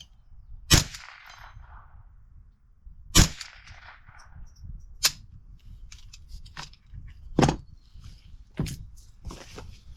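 Five gunshots at uneven intervals, the first two followed by about a second of ringing echo.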